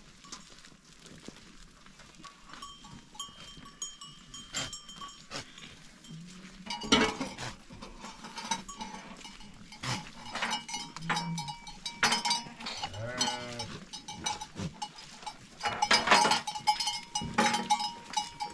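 A herd of goats jostling and feeding, with bells clinking and repeated knocks and clatter. One goat bleats about two-thirds of the way through.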